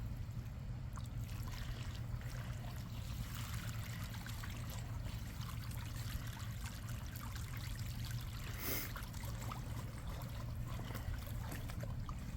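Steady trickle of water from a running garden hose into an inflatable kiddie pool, with one short louder noise about nine seconds in.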